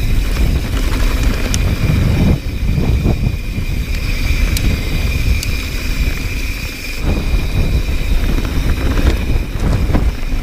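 Wind buffeting the microphone as a mountain bike rolls fast down a dirt trail, with a steady rush of wind and tyre noise and scattered clicks and rattles from the bike and loose gravel.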